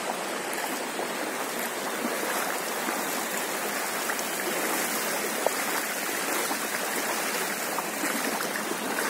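Steady rush of floodwater from an overflowing canal flowing in a strong current.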